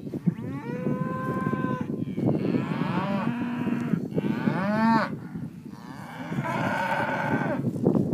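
Cattle mooing: four drawn-out calls one after another, some rising and falling in pitch, over a constant low noise.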